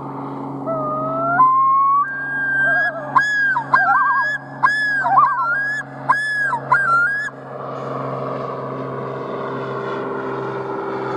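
Common loons calling: the male's yodel, a rising wail-like opening followed by a run of repeated up-swung notes, with the female joining in with her wavering tremolo. After about seven seconds the calling stops, leaving a steady low drone.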